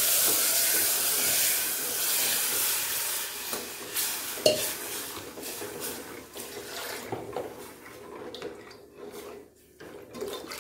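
Curd and besan batter poured into a hot pot of fried ridge gourd, hissing and sizzling as it goes in, the hiss fading over the first few seconds. Then a steel spoon stirs and clinks against the pot, and near the end more liquid is poured in from a steel tumbler.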